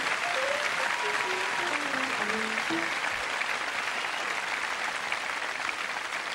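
Audience applauding steadily, with a few scattered piano notes played over it in the first three seconds.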